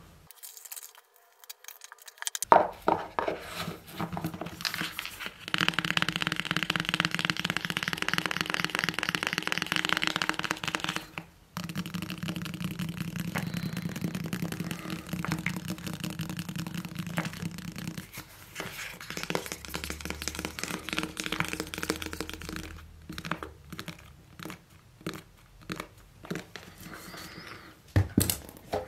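Close-miked ASMR handling of an iPhone 4 and its packaging. A few seconds in comes a dense run of quick tapping clicks lasting about five seconds, then softer, steadier handling, then scattered separate taps.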